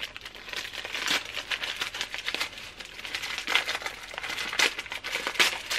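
Small paper-wrapped parcel being torn open and crumpled by hand: a continuous run of crinkling and tearing with many small crackles.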